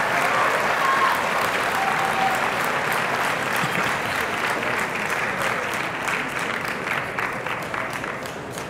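Audience applauding, a dense patter of clapping that slowly fades over the seconds.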